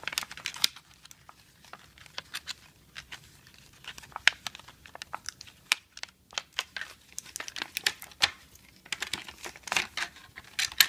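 Clear plastic packaging crinkling and crackling in the hands in irregular handfuls, with a quieter spell about six seconds in, as a stuck toy is worked out of it.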